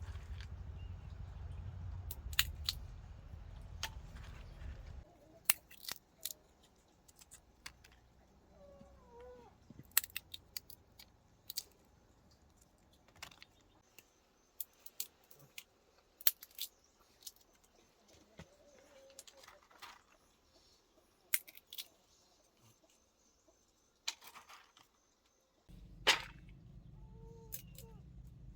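Scattered sharp clicks and knocks, like objects being handled, with a few short, faint wavering calls. A low hum stops abruptly about five seconds in and comes back just as abruptly near the end.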